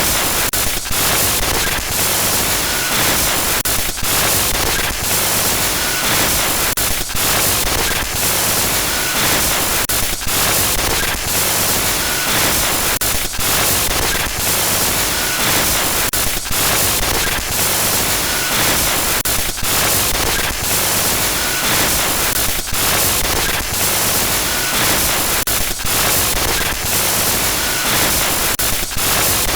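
Loud electronic glitch noise: harsh static hiss across all pitches, broken by brief stuttering dropouts about once a second, with faint short high tones now and then.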